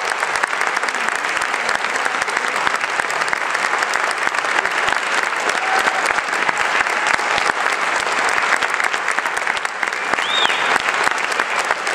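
Audience applauding steadily, with a brief high rising-and-falling note near the end.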